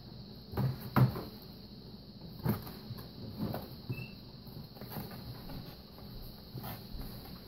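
A kitten scrabbling at and nosing into a cardboard box: irregular scratches, rustles and light knocks on the cardboard, the loudest about a second in.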